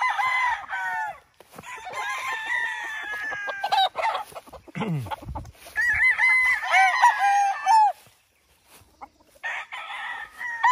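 Several Kelso gamecock roosters crowing, one after another, the crows sometimes overlapping, in about four bouts with short gaps between them.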